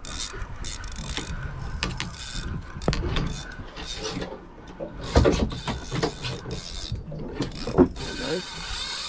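Spinning reel worked against a hooked fish, with gear and ratchet clicking as line is cranked in and the drag slips. About eight seconds in, the drag starts running continuously as the fish strips line fast.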